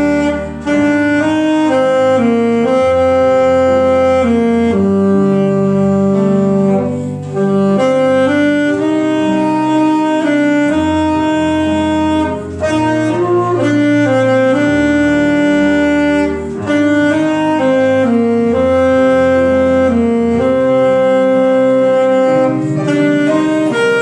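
Saxophone playing a melody of held notes over an accompaniment with a bass line, with short breaks between phrases.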